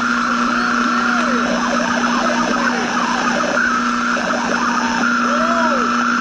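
Old radio static: a steady hiss with a constant low hum and many short whistles that rise and fall in pitch.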